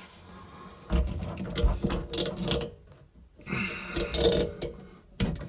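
Close handling noise with clicks and light metallic rattles, in two bursts: one about a second in and another around four seconds in, with a short lull between.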